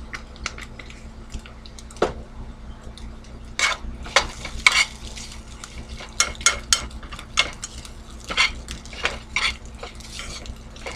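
A utensil stirring and scraping egg and onion around a nonstick frying pan: irregular bursts of scrapes and taps against the pan, over a steady low hum.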